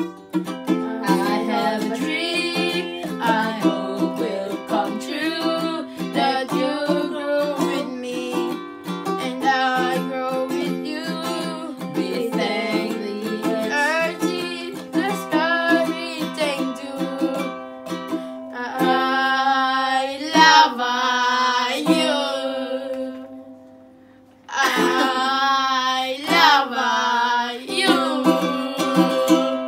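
Ukulele strummed in a steady rhythm under singing voices. The music falls away to a brief pause a little before the end, then comes back with a last strummed and sung phrase.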